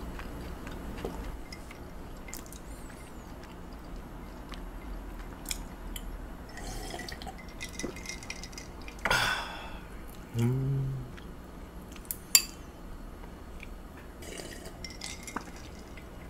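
Close-up wet chewing and mouth sounds of a person eating raw beef, with small scattered clicks. There is a short breathy burst about nine seconds in, a brief low hum from the eater just after it, and a single sharp click a couple of seconds later that is the loudest sound.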